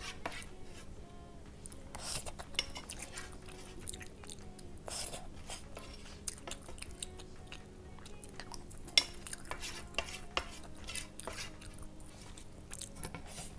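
Wooden spoon scraping and tapping against a large black pan, gathering up leftover grains of rice in short irregular strokes, with a sharper knock about nine seconds in.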